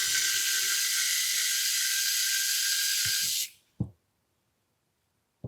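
A steady hiss of gas spraying from a nozzle for about three and a half seconds, then cutting off, followed by a couple of light knocks.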